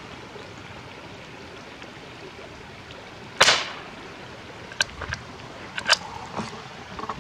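A single .22 Short round fired from a Henry Mini Bolt single-shot bolt-action rifle: one sharp crack about three and a half seconds in. A few metallic clicks follow as the bolt is worked to extract the spent case.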